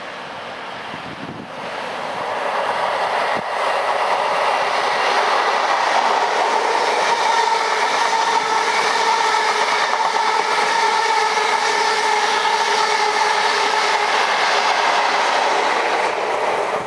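East Coast InterCity 125 (HST) passing at speed on the through line: a steady rush of wheels on rail with tones running through it. It builds over the first three or four seconds, then holds loud as the coaches go by.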